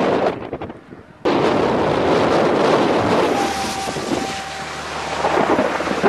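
Thunderstorm wind gusting hard across the microphone, a loud rushing noise that drops away briefly just after the start and comes back abruptly about a second in. A faint steady tone sounds for about a second and a half in the middle.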